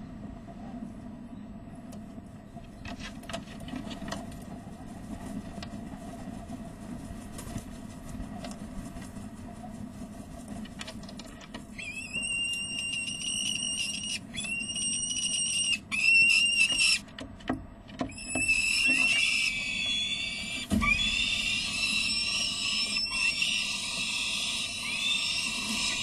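Peregrine falcon alarm calls: harsh, drawn-out calls start about halfway through, three separate ones and then an almost unbroken run to the end. They are the adult's warning at a young falcon flapping on the ledge edge. Before the calls there is only a steady low hum.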